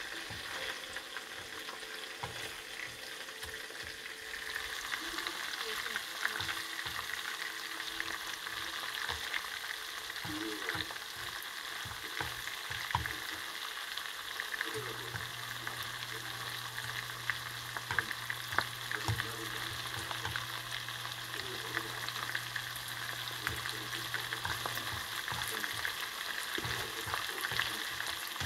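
Battered squid and vegetable fritters deep-frying in a wok of hot oil: a steady sizzle with scattered pops and clicks.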